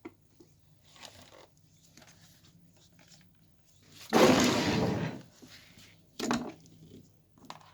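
A loud scraping rustle about four seconds in, lasting about a second, and a shorter one about two seconds later, over faint steady hum.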